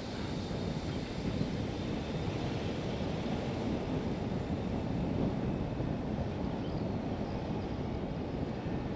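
Car driving at low speed: a steady low rumble of tyre and wind noise with no distinct events.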